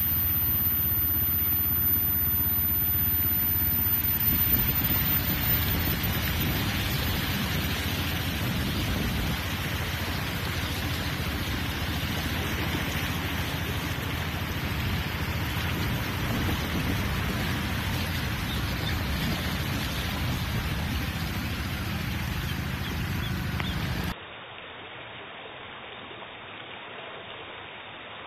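Traffic wading through a flooded road in heavy rain: bus and motorcycle engines running, tyres splashing through standing water, and a steady hiss of rain. About 24 seconds in, the sound cuts suddenly to a quieter, steady rush of floodwater flowing.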